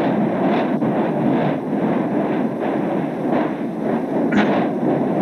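Explosive volcanic eruption on the soundtrack of old eruption footage: a continuous deep rumbling noise broken by repeated short blasts every half second or so, with one sharper crack about four seconds in.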